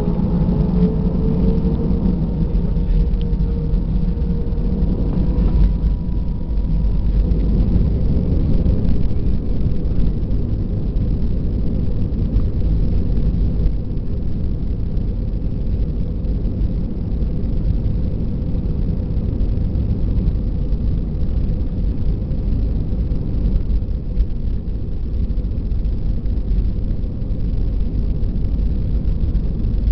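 An airliner's jet engines heard from inside the cabin at the start of the takeoff roll. Their whine rises in pitch over the first few seconds as they spool up, then holds as a steady, loud rumble.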